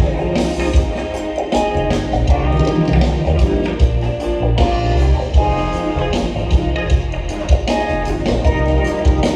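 Band music with guitar over bass and drums, no singing.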